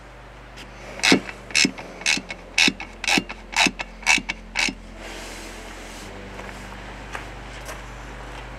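Socket ratchet wrench tightening the nut on a post hole digger's pivot bolt: a short burst of ratchet clicks on each back-swing, about two a second, stopping about five seconds in.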